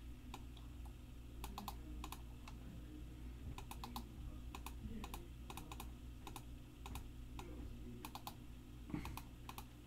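Computer keyboard keys clicking faintly in short, irregular clusters of two or three, as names are copied and pasted into a spreadsheet.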